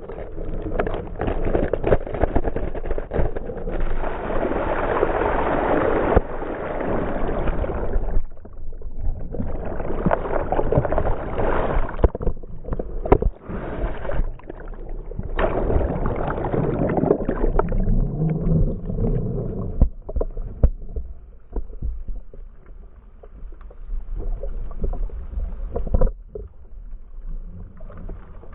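Wind and water noise aboard a small sailing catamaran in 30-plus knots of gusty wind: a rushing that swells and fades in long surges, with a deep rumble on the microphone and a few sharp knocks. It is quieter for a few seconds past the middle.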